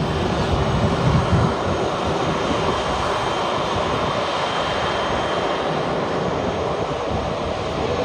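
Jet airliner's twin engines running steadily as the plane rolls along the runway: a dense, even rushing noise with a brief louder swell about a second in.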